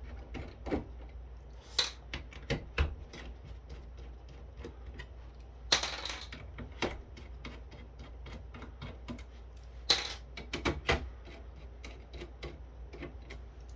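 Irregular small clicks, taps and knocks of tools and metal parts being handled while taking apart a rack-mount KVM switch, with a few louder clacks about 2, 6 and 10 seconds in.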